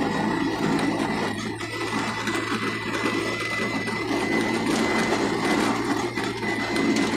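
A vehicle's engine running steadily with tyre noise on a concrete road, heard from inside the cabin: an even low hum with a rough rumble over it.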